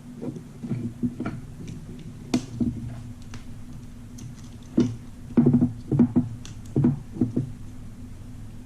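Gel blaster parts being handled during disassembly: irregular light clicks and knocks, bunched together from about five to seven and a half seconds in, over a steady low hum.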